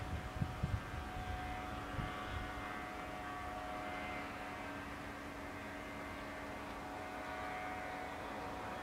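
Steady drone of a distant heavy tipper truck's diesel engine as it pulls slowly along, with low wind buffets on the microphone in the first couple of seconds.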